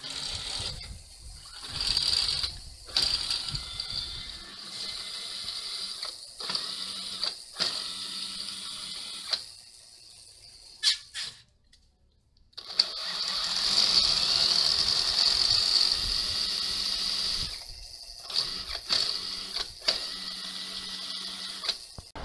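Friction-drive e-bike motor spinning the bicycle's rear tyre with the wheel off the ground, a high whine that starts and cuts off again and again as the throttle is worked on and off.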